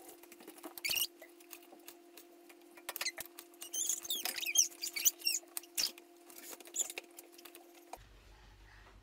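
Kitchen knife slicing strawberries on a plastic chopping board: a run of quick taps and clicks, with high squeaky sounds bunched in the middle, over a steady low hum that stops near the end.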